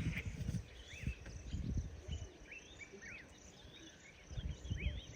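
Outdoor natural ambience: many small birds give short, high chirping calls again and again, over an irregular low rumble that comes and goes.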